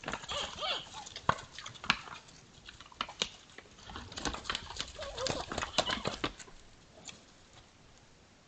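Two sambar deer sparring: rapid, irregular clacks and knocks of antlers, mixed with short odd wavering calls. The clashing dies down about two-thirds of the way through.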